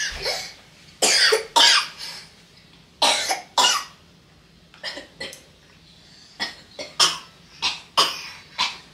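A person coughing repeatedly: a dozen or so short coughs, often two at a time, with brief pauses between.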